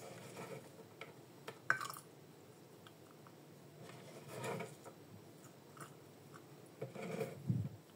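Chopped garlic being gathered off a wooden cutting board and dropped into a glass jar of water: faint, scattered rustles and a few light clicks, the sharpest about two seconds in.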